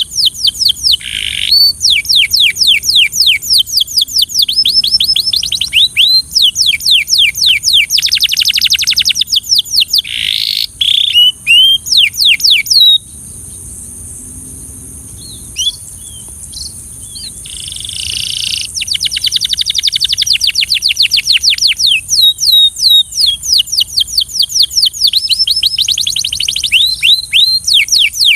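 Belgian canary singing in fast trills of rapidly repeated down-slurred notes, broken into phrases, pausing for a few seconds around the middle before launching into long trills again.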